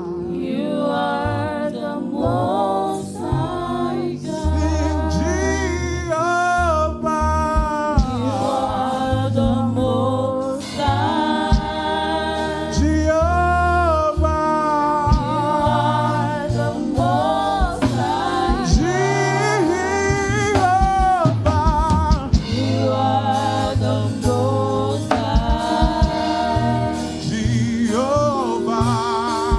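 Church praise team singing a gospel song, several voices together, over a band with steady bass notes.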